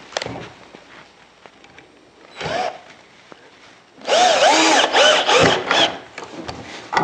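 Cordless drill-driver working into a wooden chair frame: a brief whirr about two and a half seconds in, then about two seconds of loud drilling in several spurts, the motor pitch rising and falling.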